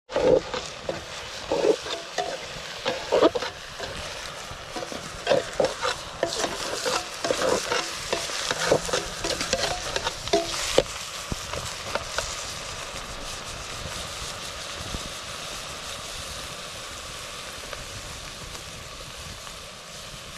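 A ladle stirring pieces of sheep meat frying in a soot-blackened pot, with repeated scraping and clattering against the pot for roughly the first ten seconds. After that the stirring stops and the meat keeps sizzling steadily in the pot.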